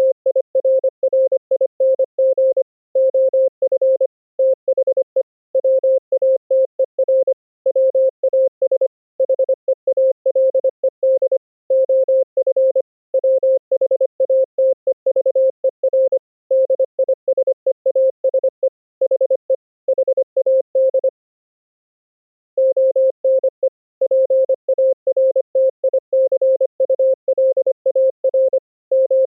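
Morse code (CW) sent at high speed as a single steady mid-pitched tone, keyed rapidly on and off in dots and dashes. There is one pause of about a second and a half about two-thirds of the way through.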